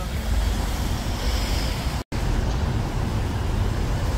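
Outdoor street noise: a steady rush with a low rumble, broken by a brief silent gap about halfway through.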